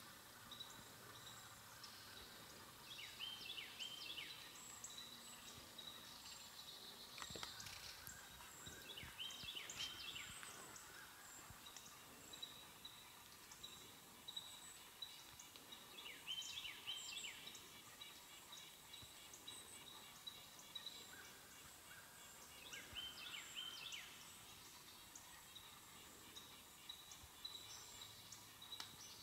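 Faint outdoor ambience with a songbird repeating a short stuttering call phrase four times, about every six or seven seconds, along with a few scattered high chirps.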